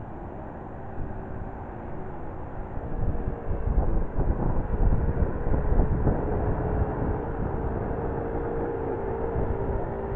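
A Citabria light airplane's propeller engine drones steadily as it flies overhead. A low rumble swells in about three seconds in and eases off again.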